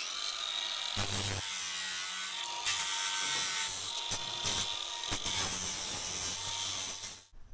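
Angle grinder spinning up, then grinding down steel rivet heads and fiberglass on a snowmobile hood: a steady high whine over harsh grinding noise, growing heavier about a second in as the disc bites. It cuts off sharply near the end.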